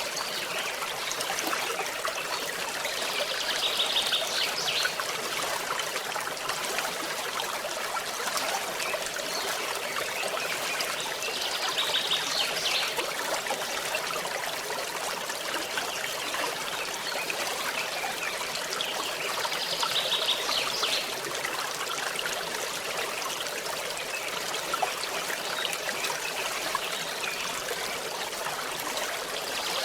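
A forest stream trickling and babbling steadily over stones. A short high trill recurs about every eight seconds over it, four times.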